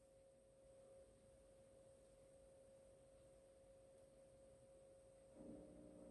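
Near silence: room tone with a faint, steady single-pitched hum and light hiss. A lower, fuller hum joins near the end.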